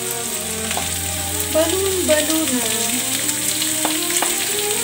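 Raw chicken gizzards sizzling and frying as they are pushed off a plate into hot oil in a wok and stirred with a wooden spatula, with a few sharp clicks near the end.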